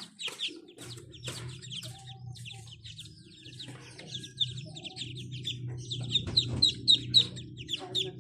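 A brood of ducklings peeping continuously: many short, high calls that drop in pitch, growing louder in the last couple of seconds. A steady low hum sits beneath them from about a second in.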